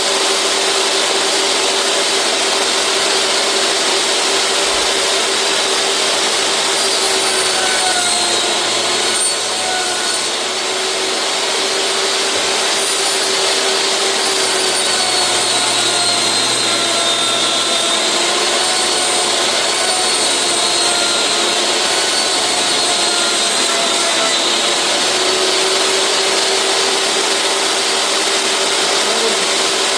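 Table saw running and cutting a sheet of plexiglass, a steady motor whine with the blade noise. The pitch sags slightly at times as the blade takes load, then recovers.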